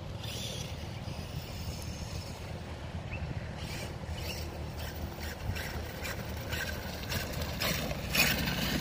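Wind rumbling on the microphone outdoors, with a run of sharp clicks and crunches from about three and a half seconds in that grows louder near the end.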